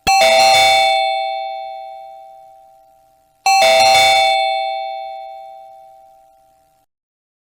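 Doorbell rung twice, about three and a half seconds apart. Each ring starts sharply and fades out slowly.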